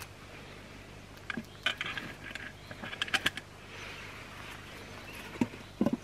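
A bushcraft knife being worked by hand against wood: a quick run of short scrapes and clicks, then a couple of dull knocks near the end.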